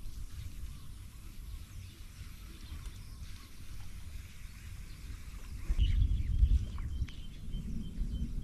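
Wind buffeting the microphone as a low, uneven rumble, strongest about six seconds in, with a bird calling faintly in a repeated high note over the second half.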